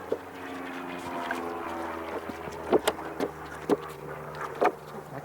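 A steady, even engine-like hum over a low drone, easing off after about two and a half seconds, with several sharp knocks or taps in the second half.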